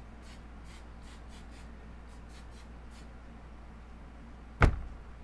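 Aerosol hair spray can sprayed in about ten short spritzes over the first three seconds. A single sharp thump follows about four and a half seconds in.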